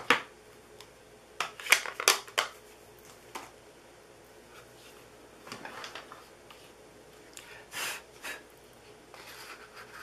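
Crafting supplies handled on a worktable: a few sharp clicks and taps, the loudest about two seconds in, then a strip of cardstock rustling as it is lifted and slid into a handheld paper punch.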